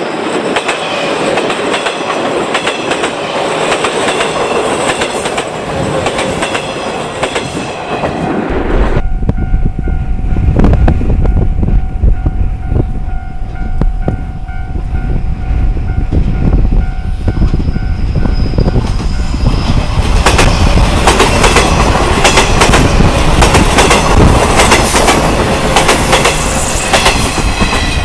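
JR 719 series electric train passing at close range, its wheels clacking over the rail joints, with the repeating ding of a Japanese level-crossing bell. The sound turns abruptly heavier about nine seconds in and is loudest from about twenty seconds on, as the cars go by.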